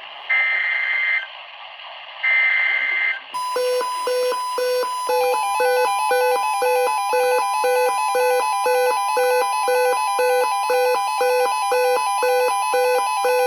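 NOAA Weather Radio emergency alert signal: two short warbling SAME data bursts, then the steady warning alarm tone from about three seconds in, with a beeping alarm pulsing about twice a second over it. It signals that a warning is being issued.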